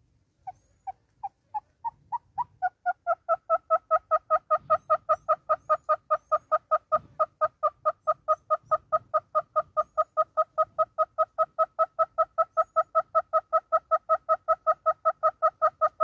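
Southern red-billed hornbill calling: a series of clucks that starts as single notes about half a second apart, speeds up and grows louder over the first few seconds, then runs on as a fast, even series of about five clucks a second.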